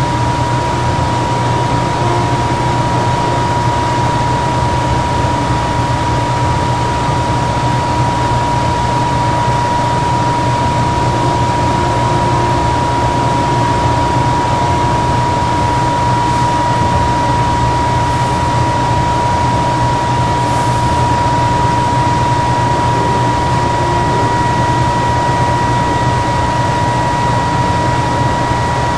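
Steady background hiss with a constant high-pitched whine and a low hum, unchanging, with no distinct events.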